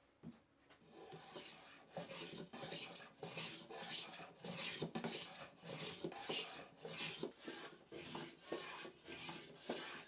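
Hand tool worked over wood in quick scraping strokes, about two a second, starting about a second in.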